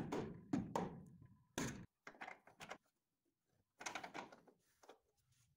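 A few faint, scattered knocks and clunks as a steel upper control arm is handled and lined up against the body mount for its eccentric bolts.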